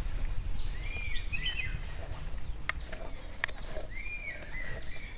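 A bird calling in short arched chirps, a few times, over a low outdoor rumble, with a few sharp clicks in the middle.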